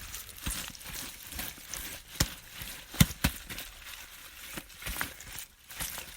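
Kimchi seasoning paste being spread and mixed into salted napa cabbage leaves: wet, sticky rustling and crackling with irregular short smacks, the loudest about two and three seconds in.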